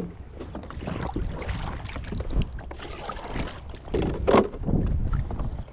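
Handling knocks on a plastic fishing kayak over a steady low wind rumble on the microphone and light water sounds, with one louder knock about four seconds in.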